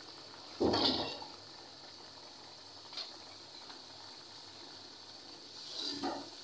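Chopped green bell peppers tipped from a bowl into a pan of simmering potato curry, landing with a brief loud splash about half a second in. The curry then bubbles faintly, and a spatula stirs through the peppers near the end.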